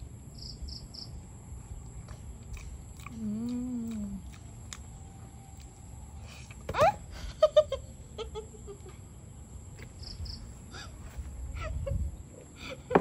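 Steady high drone of insects, with scattered bird chirps and short animal calls over it; the loudest is a sharp rising call about seven seconds in, followed by a quick run of short calls.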